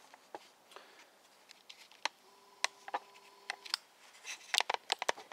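Scattered light clicks and taps of handling, with a faint steady hum of two pitches lasting about a second and a half starting about two seconds in.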